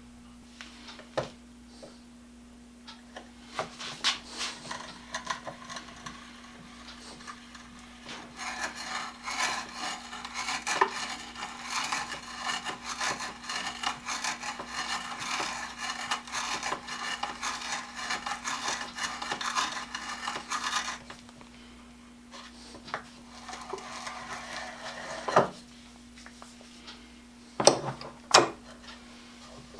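Hand saw sharpened at 10 teeth per inch cutting poplar: a few scattered knocks and light strokes, then steady sawing for about thirteen seconds and a shorter bout after. A few sharp knocks of wood near the end.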